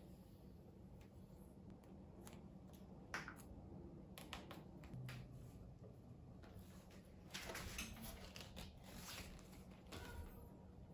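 Faint handling sounds of tape being wrapped onto a bicycle handlebar: soft rustles and crackles as the tape is pulled off the roll and stretched around the bar, with a few short ticks. The sounds are busiest a little past the middle.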